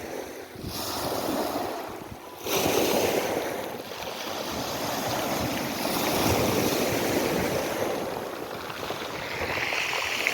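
Sea waves breaking and washing up the shore, rising and falling in swells, with a sudden louder surge about two and a half seconds in.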